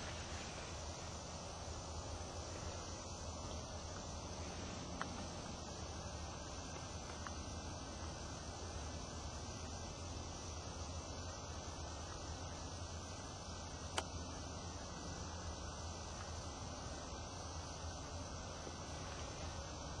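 Steady high, even chirring of insects in the brush. A faint click comes about a quarter of the way in, and a sharper single click about two-thirds through.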